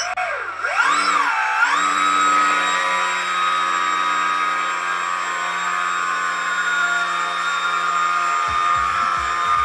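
A 1050 kv brushless electric motor spinning a model airplane's propeller. It starts suddenly, its whine swings up and down twice in the first couple of seconds as the throttle is worked, then holds at a steady high whine, with some low buffeting near the end.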